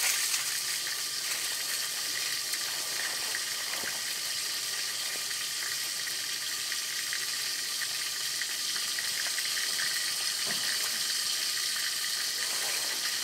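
Steady hiss and sizzle of water boiling on a hot wood-burning tent stove.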